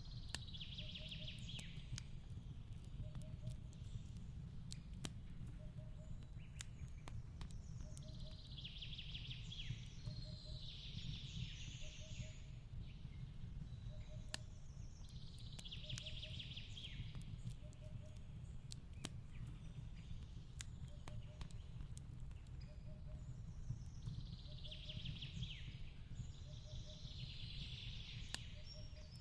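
Fireplace and forest ambience: a wood fire crackles with scattered sharp pops over a steady low rumble, while birds chirp in short bursts every few seconds. A faint short note repeats about once a second throughout.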